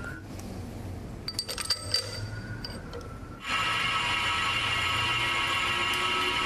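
A few sharp, ringing metal clinks, then a little past halfway the manual metal lathe is switched on: its four-jaw chuck spins up at once and the machine runs steadily with a high whine.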